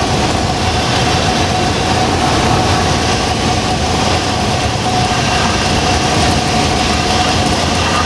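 Steady engine, propeller and airflow noise inside the cabin of a Cessna 172 Skyhawk as it comes in to land, with a faint steady tone that fades in the second half.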